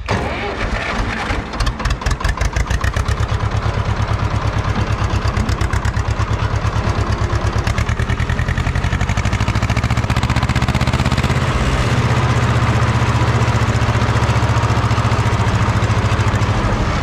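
Small tractor engine being started and settling into a steady run with distinct, rapid firing beats. Its low note changes about twelve seconds in as the tractor pulls away.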